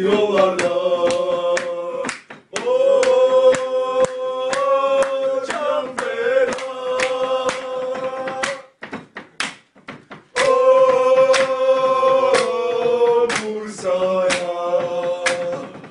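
A Bursaspor supporters' chant sung by a chorus of voices in long held notes over sharp, regular beats. About nine seconds in, the singing breaks off for a second or two, leaving the beats alone, then comes back.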